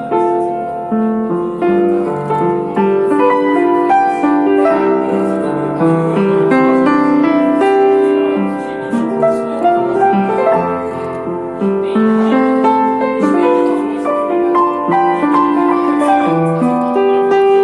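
Piano playing a slow melody over chords.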